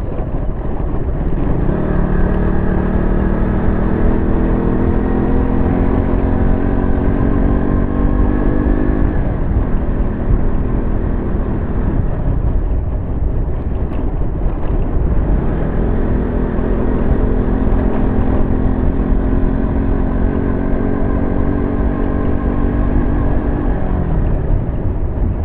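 KTM motorcycle engine under way, pulling slowly up through the revs twice, each time climbing gradually in pitch for several seconds and then dropping away, over a steady rush of wind noise. The rider suspects a burnt clutch plate, with the bike not picking up speed under throttle.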